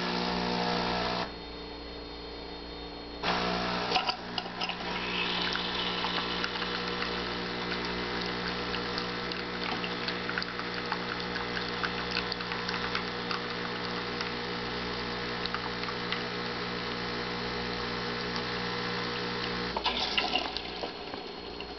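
Solis Palazzo super-automatic espresso machine brewing a double espresso: after a brief hum and a lull of about two seconds, its pump starts and hums steadily as coffee pours into two cups. The pump stops about two seconds before the end, followed by a few clicks.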